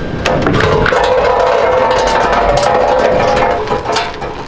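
Background music with a percussive beat and sustained pitched tones, cutting in abruptly.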